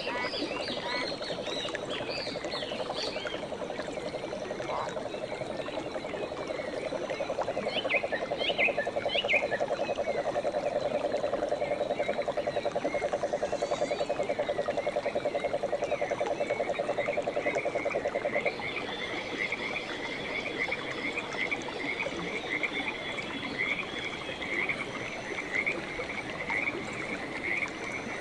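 Frogs calling: a steady, rapid low trill for about the first eighteen seconds that stops abruptly, then a run of higher, quickly repeated chirps. A few other high chirps come near the start and around eight seconds in.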